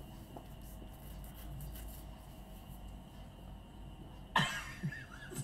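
Quiet room tone, broken about four seconds in by a short, cough-like vocal sound followed by a faint low murmur.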